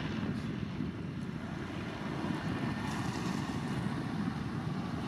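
Steady low rumble of passing ships' engines and wash on harbour water, with some wind noise.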